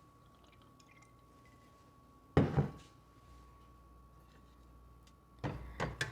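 Cooking oil poured into a frying pan: a short splash about two and a half seconds in, then a few brief knocks and splashes near the end, with a faint steady high tone underneath.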